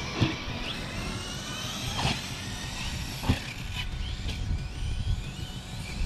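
Electric RC car running on grass, its motor whining up and down with the throttle, with three short knocks, about a second or so apart, from the car hitting the ground.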